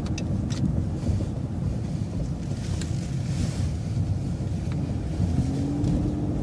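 City transit bus running, heard from inside: a steady low rumble of engine and road noise as the bus turns, with a few faint clicks. About five seconds in, a steady whine joins the rumble.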